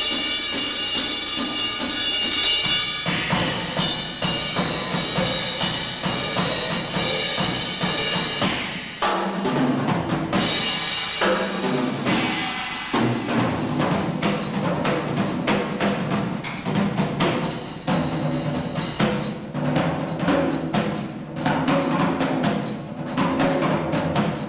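Jazz drum kit solo: rapid strokes and rolls across snare, toms and bass drum. Cymbals ring over the first few seconds, and around ten seconds in the cymbals drop out briefly under low tom strokes before the full kit comes back in.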